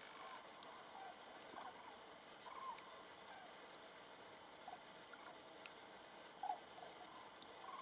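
A flock of migrating common cranes calling in the distance: faint, short trumpeting calls one after another, with a slightly louder call about six and a half seconds in.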